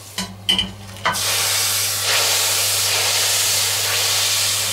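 A couple of metal clinks, then from about a second in a loud, steady sizzling hiss as the hot wok with its fried vegetables and fat meets the boiling broth in the cauldron.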